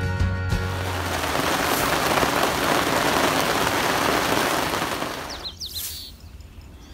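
Heavy rain falling on the water, a steady dense hiss that fades out about five and a half seconds in.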